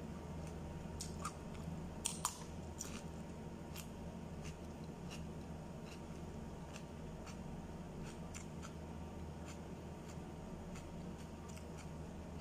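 Close-up crunchy chewing of raw cucumber: two sharp crunching bites about two seconds in, then scattered smaller crunches as it is chewed. A steady low hum runs underneath.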